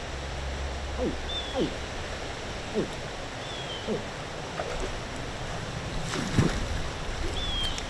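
Water splashing about six seconds in as an alligator churns the shallow canal water at the bank; this is the loudest sound. Around it, short low calls that drop in pitch come roughly once a second, and a bird's short high whistle comes back every couple of seconds.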